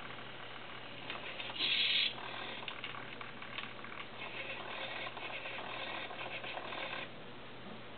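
Hobby servo motors of a small homebuilt robot arm running in short spurts as the arm moves, with a louder burst about two seconds in; the servo noise stops about seven seconds in.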